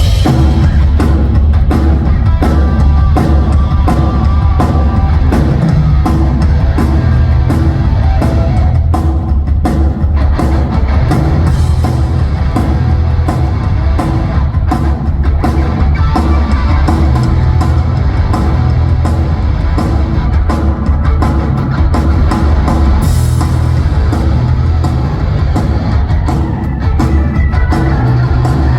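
Live band playing a loud rock passage during a sound check, with a steady drum kit beat and heavy bass; it kicks in suddenly.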